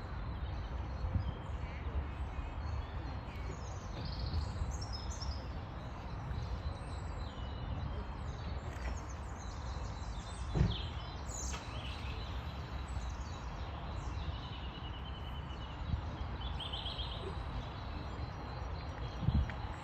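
Small birds calling in short, high chirps and a couple of rapid trills, over a steady low rumble, with one sharp knock about halfway through.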